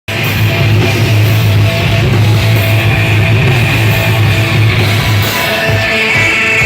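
Live rock band playing loud, guitar-driven heavy music: distorted electric guitar over bass and drums, starting abruptly.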